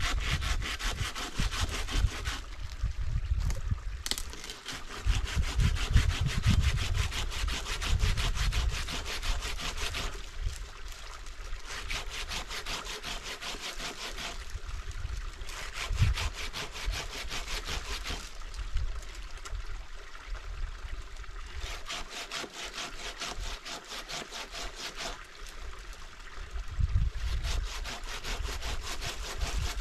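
Hand saw cutting through a tree branch, rasping in runs of steady strokes a few seconds long with short pauses between. A low rumble comes and goes underneath.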